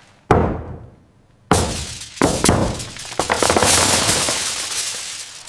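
Giant chocolate egg shell cracking apart: a single sharp knock, then about a second later a loud crash of breaking shell with several sharp cracks and a long crackling spill of pieces, glass-like, fading near the end.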